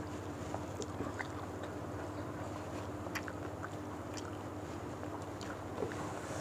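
Faint scattered clicks and smacks of people eating rice and fish with their hands and chewing, over a steady low background hum.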